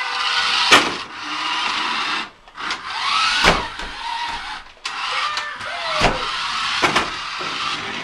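Toy remote-control car's small electric motor whirring in runs of a second or two with short pauses, and several sharp knocks along the way.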